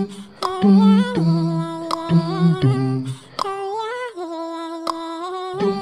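Background music: a hummed vocal melody of held, stepping notes over a low bass line, with sharp percussive hits. The bass drops out for about two seconds in the middle, leaving the melody alone.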